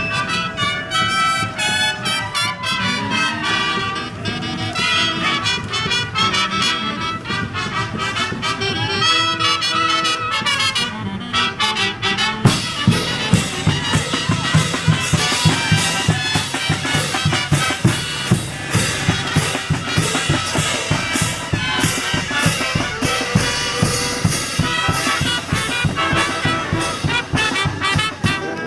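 Brass street band playing a tune on horns, with drums coming in about halfway through with a steady, driving beat and the music getting fuller and louder.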